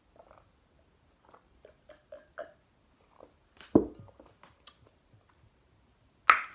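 Close-up eating sounds: soft, scattered chewing and mouth noises, with a dull thump a little under four seconds in and a sharp clack near the end.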